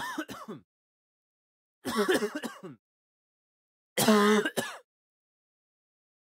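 Three short vocal sounds about two seconds apart, each under a second long, with a pitch that rises and falls. Dead silence lies between them.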